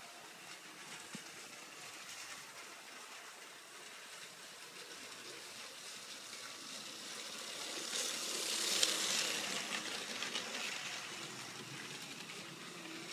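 Lego Power Functions train motor whirring as the motorised ghost train runs along plastic Lego track, its wheels running on the rails. The sound grows as the train comes near, is loudest about eight to nine seconds in, then eases off.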